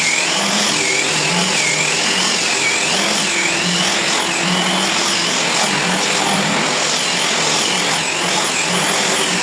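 Handheld angle grinder running under load. Its whine wavers up and down in pitch every second or so as the disc bites.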